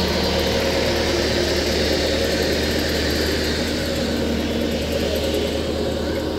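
An engine running steadily at idle, with a constant low hum and no change in speed.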